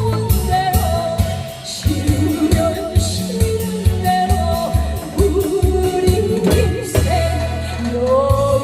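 Music: a song sung over an accompaniment with a steady, heavy beat.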